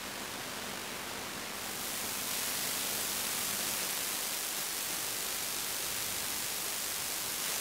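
Steady static-like hiss, growing louder about two seconds in.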